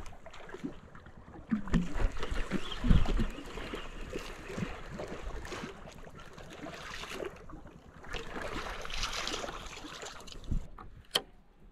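Wind buffeting the microphone and water noise around a small open boat at sea, with a few low knocks early on and a single sharp click near the end.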